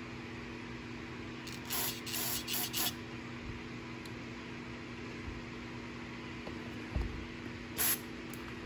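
Aerosol carburetor cleaner sprayed through a thin straw into a clogged small-engine carburetor jet: a quick run of short hissing spurts about two seconds in, then one more short spurt near the end. A steady low hum lies underneath.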